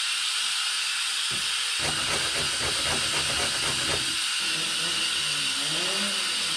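A carrot rasping against a hand grater in a quick run of even strokes for a couple of seconds in the middle, over a steady hiss.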